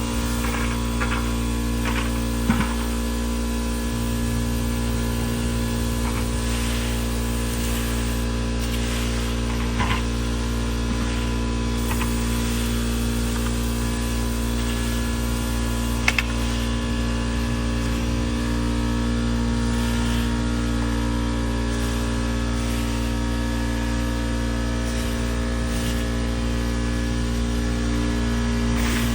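A steady machine hum, with a few faint knocks now and then.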